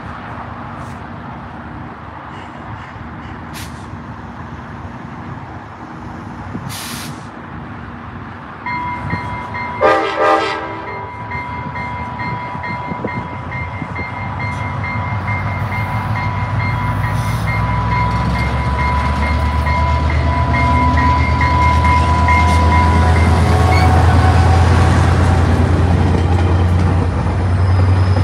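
Trinity Railway Express diesel-hauled commuter train moving through the station. Its bell rings steadily from about nine seconds in and its horn gives two short toots about ten seconds in. The deep rumble of the locomotive and the double-deck coaches then grows louder as the train comes alongside.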